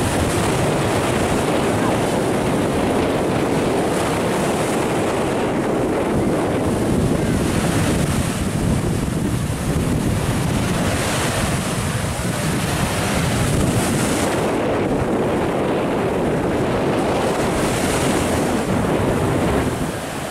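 Sea surf breaking on a sandy beach: a steady rush of small waves, swelling every few seconds, with wind buffeting the microphone.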